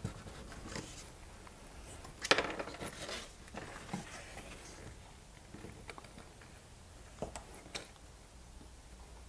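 Knife slicing and scraping through a strip of birch bark on a wooden workbench, trimming off its defective end: quiet crackling cuts, the loudest a short scrape about two seconds in, with a few light ticks of blade and bark on the bench.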